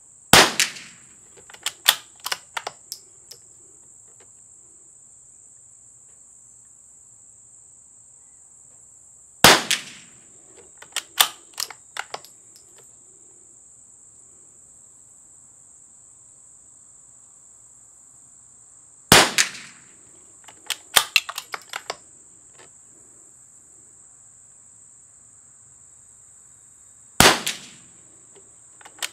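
Four single shots from a .22 LR CZ455 bolt-action rifle fitted with a Harrell barrel tuner, spaced about eight to ten seconds apart. Each shot is followed by a quick run of metallic clicks as the bolt is worked to eject the case and chamber the next round. A steady high insect buzz runs underneath.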